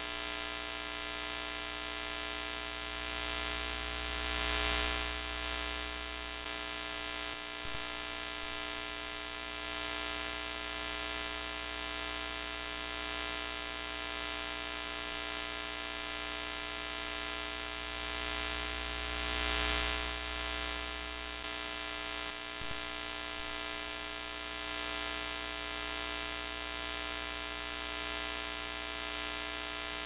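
Broken-television sound effect: a steady electrical hum and buzz under static hiss, swelling briefly twice, with a faint click after each swell.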